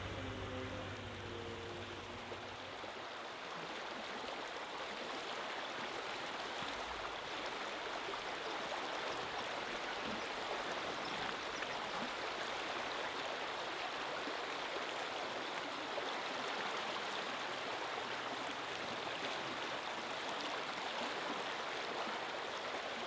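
A river or stream flowing steadily, an even rushing water noise. An engine's hum fades out in the first couple of seconds.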